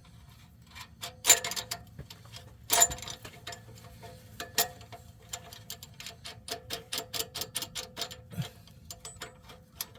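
Two sharp metal clanks about one and three seconds in, then a socket ratchet clicking in quick regular strokes as it runs down the nut on an exhaust pipe clamp.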